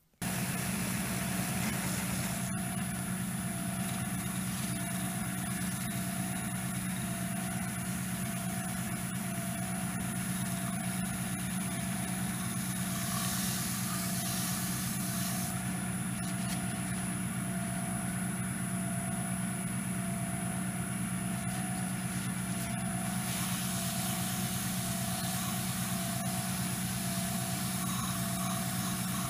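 Wood lathe running at a steady speed, a constant motor hum with a thin high whine, coming on abruptly at the start. A paper towel pressed against the spinning yew workpiece to apply finish adds a rubbing hiss around the middle and again near the end.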